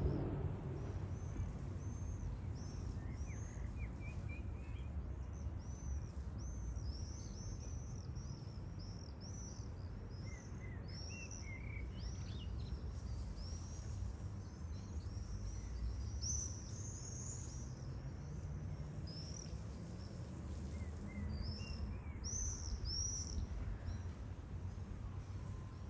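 Small birds chirping: many short, high calls in quick runs, busiest in the middle and again near the end, over a steady low rumble.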